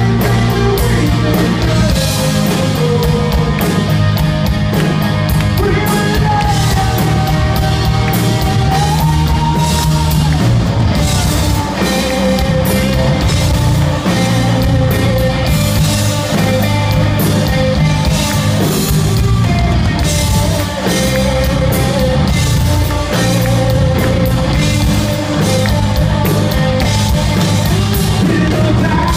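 A rock band playing live and loud: electric guitars over a drum kit.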